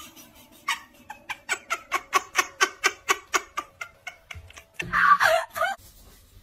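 Water splashing in quick, even strokes, about four to five a second, as a dog paddles its front paws in a small plastic tub of water. A louder burst of splashing or noise follows near the end.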